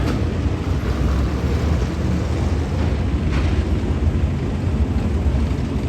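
Race car engines at a short-track speedway making a steady, fairly loud low rumble, with no single car's pass-by standing out.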